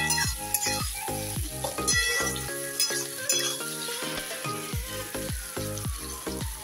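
Potatoes, onion and tomato frying in oil in a kadai, sizzling as a spatula stirs them. Background music with a steady beat plays over the frying, with a long falling tone in its second half.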